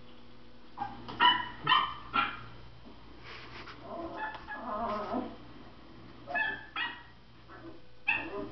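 A dog's high-pitched yips and short barks in three quick bunches, with a lower, wavering whining stretch between the first two bunches.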